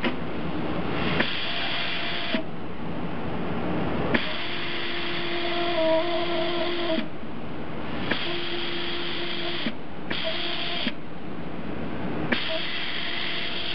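KHA850H hot-air hemming machine: its hot-air blower hisses steadily while the roller drive whirs in five separate runs, each starting and stopping with a click.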